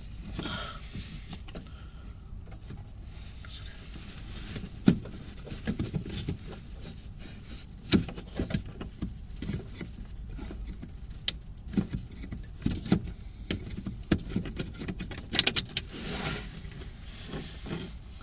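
Hands working Torx screws out of a fog light assembly inside a car bumper: scattered clicks, taps and small knocks of metal and plastic, with some rustling near the end.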